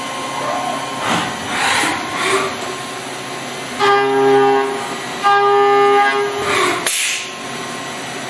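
Steady machine hum with a few brief swells of hiss, broken about four and five seconds in by two long, horn-like pitched tones of about a second each.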